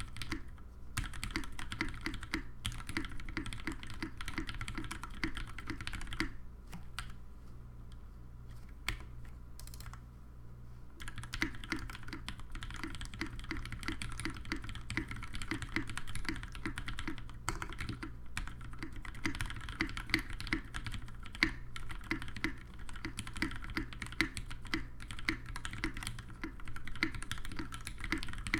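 Mechanical keyboard with lubed retooled Cherry MX Black linear switches on a brass plate, typed on steadily in a fast patter of keystrokes. A little after the first quarter the typing eases off to a few single strokes for about four seconds, then picks up again.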